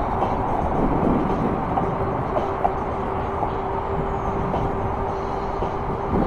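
Riding noise from a moving e-bike: wind buffeting the microphone and tyres rolling on pavement, as a steady low rushing. Under it runs a thin, steady whine from the bike's electric hub motor.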